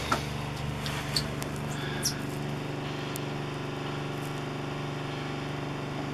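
Trailer's 12-volt fresh water pump running with a steady hum while it pumps water into the water heater through the opened bypass valve. A few light clicks from the valve and fittings being handled come in the first couple of seconds.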